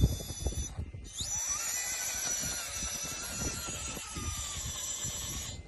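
Electric motor and gear train of a custom RC rock crawler whining under throttle. It spools up with a rising whine a little over a second in, runs steadily with the pitch drifting slightly lower, and cuts off near the end, over low knocks and rumble.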